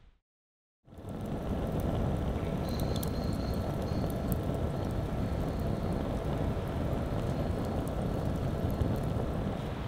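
Wood fire burning in a fire pit: a steady low rush of flame with scattered sharp crackles and pops, coming in about a second in after a brief silence.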